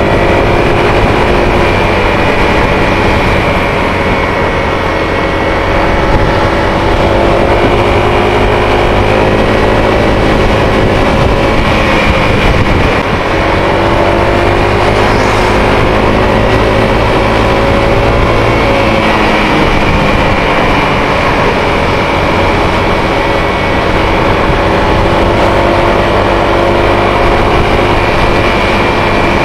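Engine of the vehicle carrying the camera running at road speed, with wind rushing over the microphone. The engine note drops briefly about thirteen seconds in and then picks up again.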